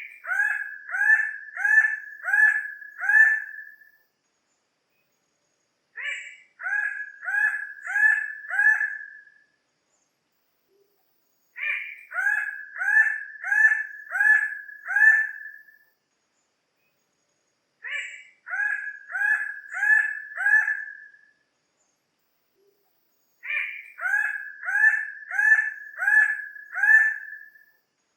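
Bird-of-paradise calls: a phrase of one opening note followed by about five loud, evenly spaced calls, roughly two a second, repeated five times with a few seconds of silence between.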